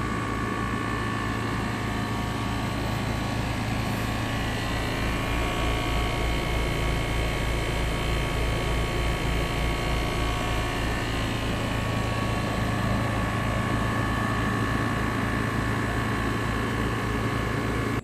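New Trane XR 4-ton air conditioner condensing unit running: its compressor and condenser fan make a steady hum with fixed tones and a low, even pulsing, the unit in normal cooling operation.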